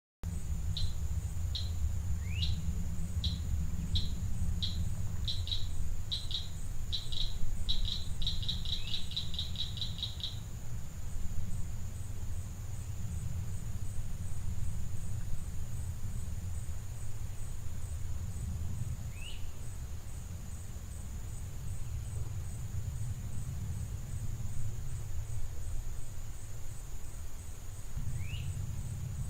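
Outdoor ambience: a steady high insect trill with a fast even pulse, and a bird repeating a short high note, spaced at first and then quickening into a rapid run that stops about ten seconds in. Two brief rising chirps come later, under a constant low rumble.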